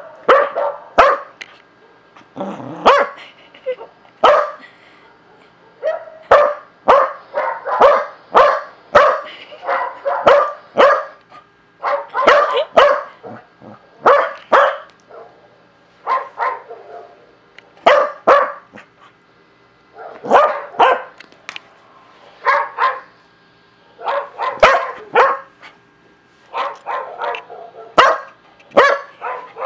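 Dog barking many times in quick runs of short barks with brief pauses between them.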